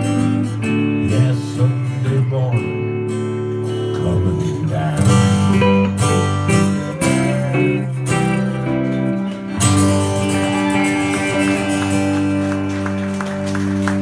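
Acoustic guitar playing the instrumental close of a country ballad, strummed and picked chords, with a chord left ringing over the last few seconds.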